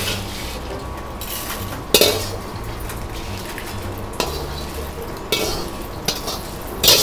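Metal ladle scraping dry-roasted dried chilies and Sichuan peppercorns out of a wok into a small metal bowl, with a few scrapes and clanks of metal on metal over a steady low hum.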